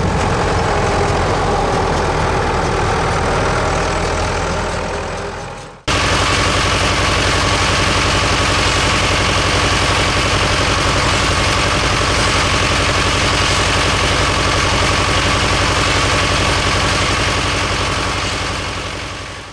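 Tractor diesel engine running steadily, in two edited clips: the first fades out about six seconds in, then a second engine sound starts abruptly and runs evenly until it fades out near the end.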